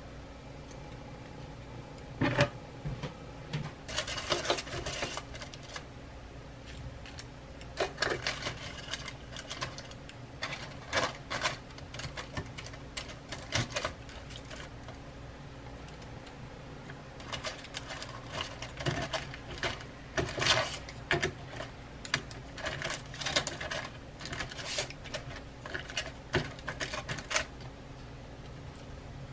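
Chopsticks clicking and clattering against dishes in several short bursts of rapid clicks, as pieces of air-fried chicken tempura are picked up and set down on a plate.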